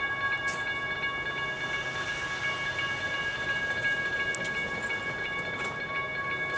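Diesel freight locomotive's air horn held in one long, steady blast, over a low rumble from the locomotives.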